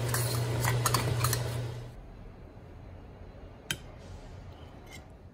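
A metal spatula scraping and clinking in a wok of sizzling braised fish head and tofu, over a steady low hum; the sizzling and hum stop about two seconds in. It goes quieter, with one sharp clink of the spatula later and a couple of light ticks near the end, as the fish head is lifted onto a plate.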